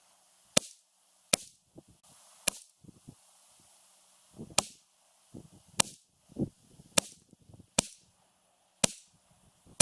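A Ruger 10/22 semi-automatic .22 LR rifle firing a string of single shots, eight sharp cracks at irregular intervals of roughly a second. A few duller thumps fall between the shots.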